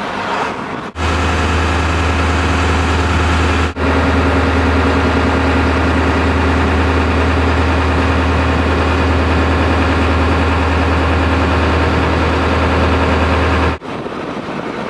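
Boat engine running steadily with a deep hum, with brief breaks about a second in and near four seconds in, and going quieter near the end.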